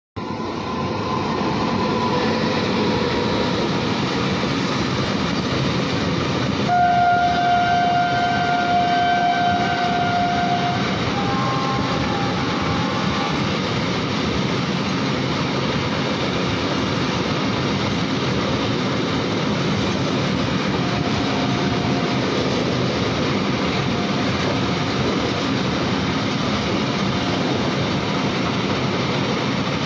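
Long freight train hauled by electric locomotives rolling past, with a steady rumble of wagons on the rails. A locomotive horn sounds about seven seconds in and is held for some four seconds, followed by a shorter, slightly higher note.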